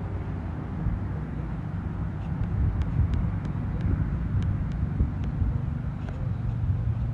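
Strong, gusty wind buffeting the microphone: a low rumble that swells and eases, with a few faint short ticks scattered through the middle.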